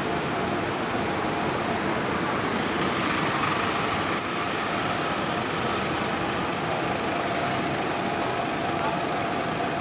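City street traffic noise with a large road vehicle's engine running steadily, and a brief sharper sound about four seconds in.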